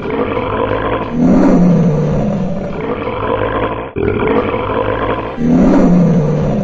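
Dinosaur roar sound effects: a string of loud, drawn-out growling roars, with a fresh roar starting about a second in and another past the middle.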